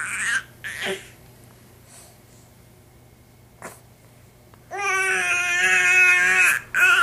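Four-month-old baby fussing while on his tummy: two short high-pitched cries at the start, then, after a quiet stretch with one faint click, a long held cry of nearly two seconds and another short cry at the end.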